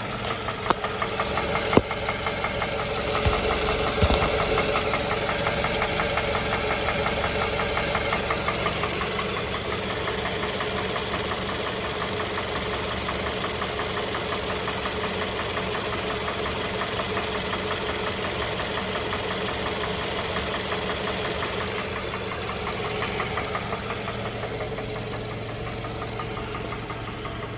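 Toyota 2AZ-FE 2.4-litre four-cylinder engine in a Camry XV30 running, with a fast, even knock running through it that the mechanic puts down to the balance shafts. A few sharper thumps come in the first four seconds.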